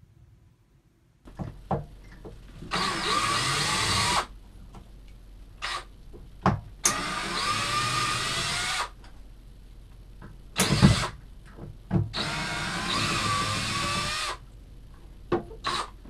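Cordless drill-driver backing out the screws that hold the fiberglass icebox lip to the boat's interior structure. It makes three runs of about one and a half to two seconds each, with clicks and knocks between them and a loud knock before the last run.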